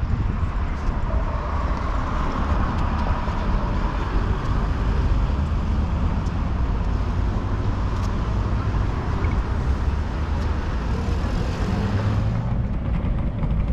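Steady road-vehicle noise: a continuous low rumble with hiss above it, which thins out about twelve seconds in.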